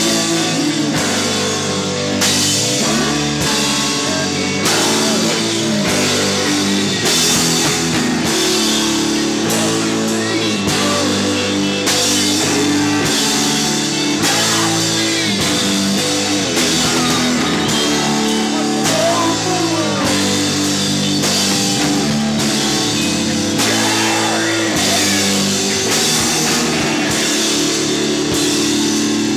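A live rock band playing: electric guitar and trumpet over a steady drum-kit beat, with the hits coming at an even pace all through.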